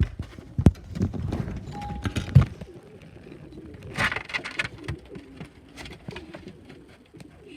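Low cooing bird calls with clatter and two loud knocks, the first under a second in and the second about two and a half seconds in, as food goes into a bowl.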